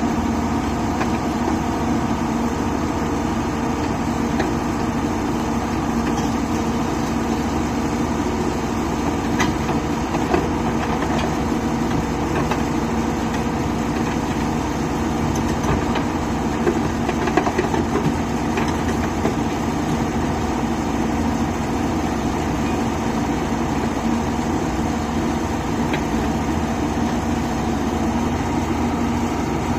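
Diesel engine of a Hyundai 220-class crawler excavator running steadily as the machine crawls off a lowbed trailer, with a few light knocks in the middle.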